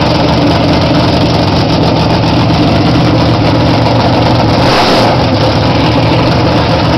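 347 cubic-inch small-block Chevrolet V8 with angle-plug Bowtie heads idling steadily, loud and close. A brief rush of hiss comes in about five seconds in.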